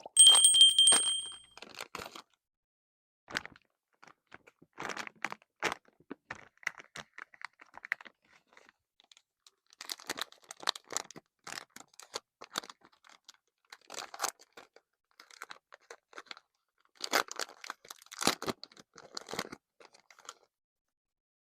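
Plastic blind-bag packaging of a masking tape roll being handled, crinkled and torn open by hand, in irregular crackly bursts with short pauses. A short, loud, high-pitched steady tone sounds at the very start.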